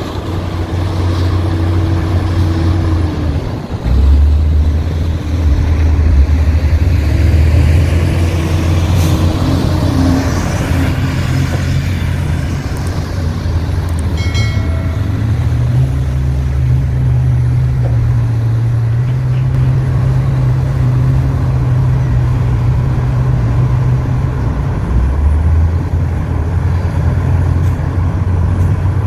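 Heavy diesel engines of an excavator and a dump truck running loudly under working load. The engine note steps up a few seconds in, shifts higher again around the middle, and drops back near the end.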